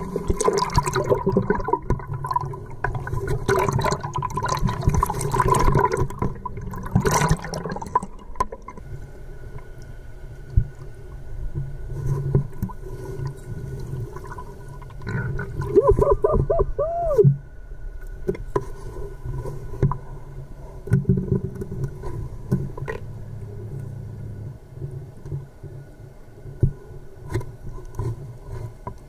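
Water heard through a camera underwater: muffled sloshing and gurgling, busier with surface splashes for the first eight seconds or so, then a steady low rumble with a faint steady whine. About 16 seconds in there is a brief run of warbling rising-and-falling sounds.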